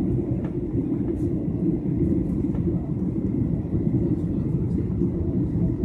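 Steady cabin noise inside a Boeing 737 airliner in flight: an even, low rush of jet engines and airflow past the fuselage.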